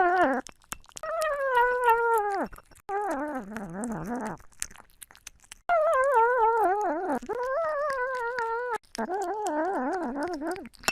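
A dog howling: a run of about six long, wavering calls, each sliding down in pitch at its end, with short breaks between them.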